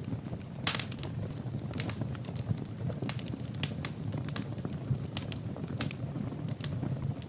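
Wood fire burning in a fireplace: a steady low rumble of flames with irregular sharp crackles and pops, a quick cluster of them about a second in.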